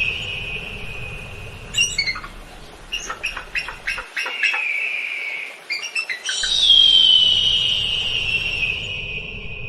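Eagle calling: bursts of short, high chirping notes, then about two-thirds of the way in a long, high, piercing cry that falls in pitch and slowly fades.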